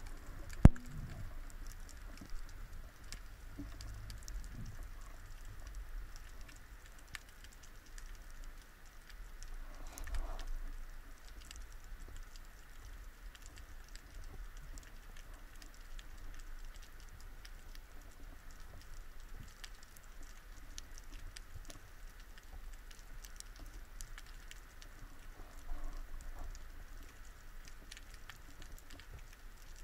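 Underwater ambience during a spearfishing dive: a constant faint crackle of many small clicks over a low water rumble, with a brief swell of water noise about ten seconds in.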